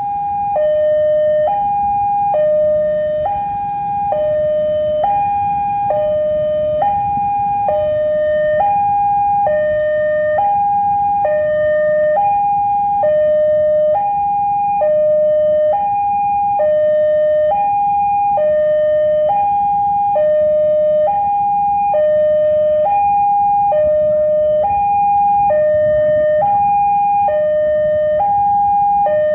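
Railway level-crossing warning alarm sounding a steady two-tone hi-lo signal, switching pitch about once a second, warning that a train is approaching. A low rumble runs underneath.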